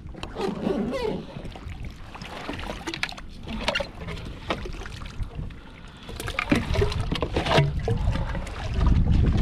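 Knocks, clicks and rattles of fishing gear being handled aboard a plastic kayak, with wind rumbling on the microphone near the end.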